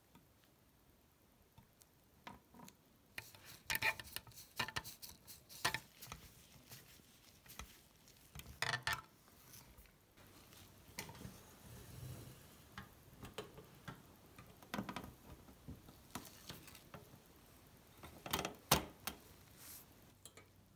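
Light metallic clicks and taps of small screws and painted sheet-metal parts being handled and fitted together on a tin toy truck. They come in scattered clusters with pauses between, and there is a sharper knock at the very end.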